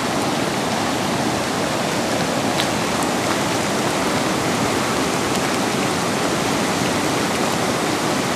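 Swollen floodwater rushing over rocks in a rain-filled stream, a steady, unbroken rush of water.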